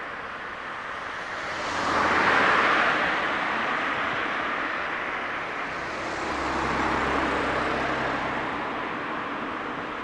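Vehicles passing one after another, the noise swelling and fading twice: first about two seconds in, then again around seven seconds with a low engine hum underneath.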